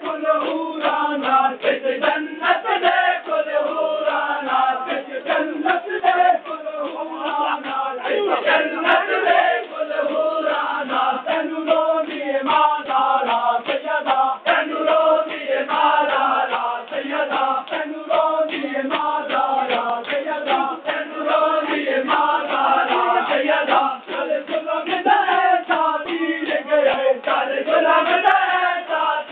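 Crowd of men chanting a noha in unison during matam, with many sharp slaps of hands on bare chests beating through the chant.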